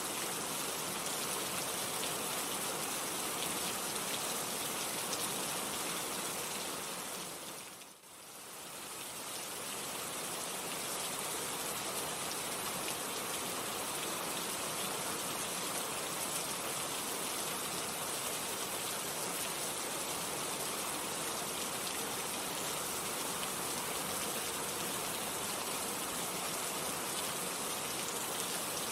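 Steady heavy rain falling, a dense even hiss of drops. About eight seconds in it briefly fades down and swells back, like a loop being joined.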